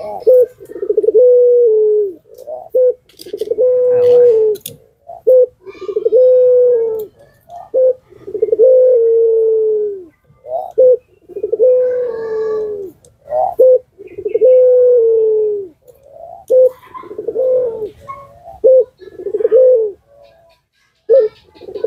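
Puter pelung (Barbary dove, a pale collared dove) cooing over and over: long drawn-out coos that sag slightly in pitch at the end, each followed by short clipped notes, about every two seconds.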